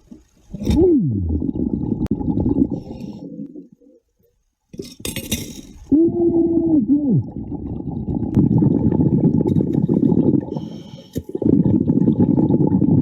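Diver's exhaled air bubbles heard underwater as long bursts of low rumbling, with a short hum that slides down in pitch about six seconds in.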